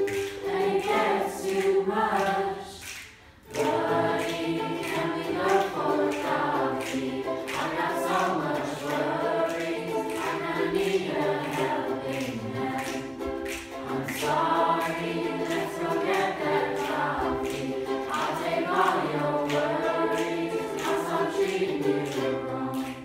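A group of teenage voices singing a song together to ukulele accompaniment, with a steady beat of finger snaps. The music breaks off briefly about three seconds in, then carries on.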